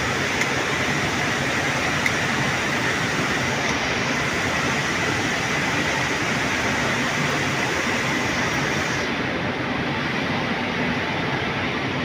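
Steady din of sugar factory process machinery, an even rushing noise with a faint high whine held throughout.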